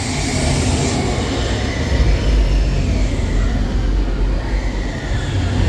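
Deep, rolling train rumble of a Disney dark ride, growing louder about two seconds in.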